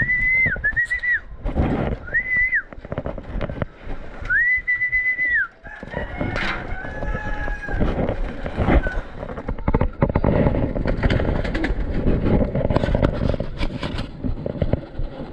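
A run of four high, level whistles of different lengths, the last held for about a second. After a pause comes a dense spell of rustling and knocking as a racing pigeon is handled.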